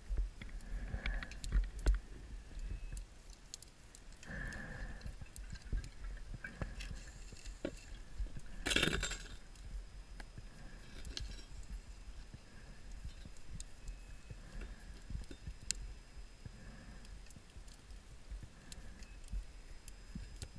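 Scuba diver breathing underwater through a regulator: hissing inhalations every few seconds and a gush of exhaled bubbles about nine seconds in, with scattered small clicks and knocks.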